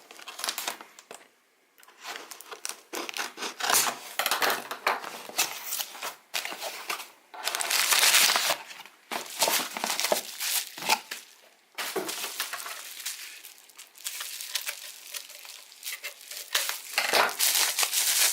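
Packaging being torn open and handled: irregular crinkling, crumpling and tearing of wrapping, loudest about eight seconds in.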